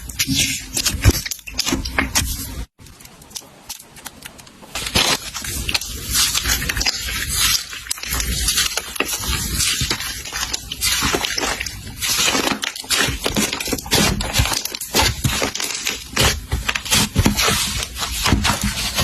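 Slime being squeezed and poked by hand: a dense run of crackling pops and clicks, with a brief break and a quieter stretch a few seconds in.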